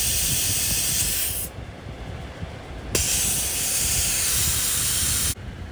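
Compressed air hissing out of an overinflated car tyre through the hose chuck of a Hart 20-volt cordless inflator, as the pressure is let down. It comes in two long releases with a pause of about a second and a half between them, and a click as the second one starts.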